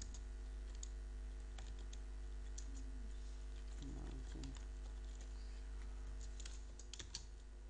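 Computer keyboard being typed on, scattered key clicks at an irregular pace, over a steady low electrical hum.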